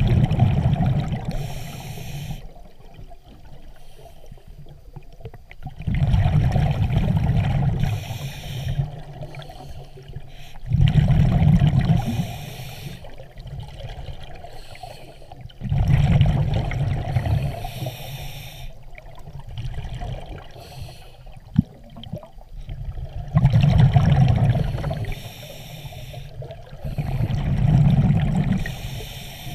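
A scuba diver breathing through a regulator underwater: six breaths, each a loud rush of exhaled bubbles lasting a second or two, with the regulator's hiss on the inhale between them.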